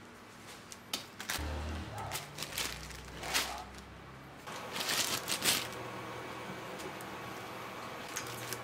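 Plastic pancit canton instant-noodle packets crinkling and crackling as they are handled, with the loudest crackles around three and five seconds in.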